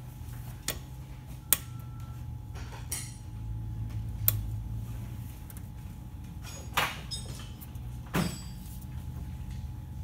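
Hand work among plastic and metal parts in a car's engine bay: a few sharp clicks, then two louder knocks with a short scrape near the end, over a steady low hum.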